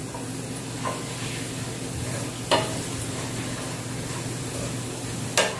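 Chopped garlic and chili frying in oil with a steady sizzle while a wooden spatula stirs it around the pan. Three short knocks sound about a second, two and a half seconds and five seconds in.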